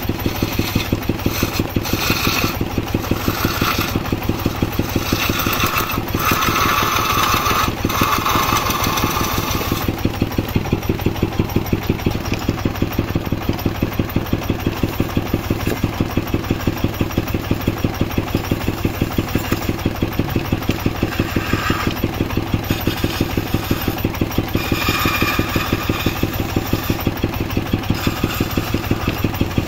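Engine-driven wood lathe: the drive engine runs with a steady, rapid beat, while a hand chisel cuts the spinning wood with a harsh scraping hiss, mostly in the first ten seconds and again briefly about three-quarters of the way through.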